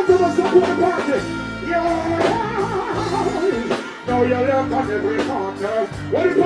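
Live dancehall/reggae performance: a male artist sings into a microphone over a bass-heavy backing rhythm played through a sound system.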